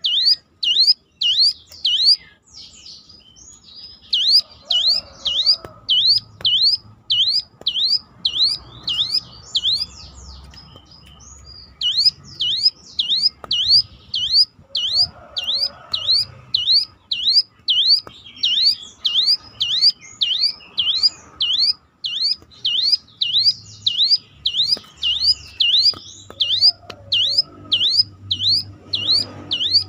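Hill prinia (ciblek gunung) calling a siren-like note over and over, a whistle that dips and rises again, about two a second. The run breaks off twice for a second or two, with softer chirps in the gaps, then carries on.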